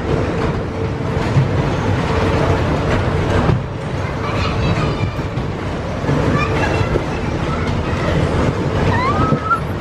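Fairground waltzer ride running at speed: a continuous heavy rumble and clatter of the spinning cars on the rolling platform, with a steady hum through the first few seconds.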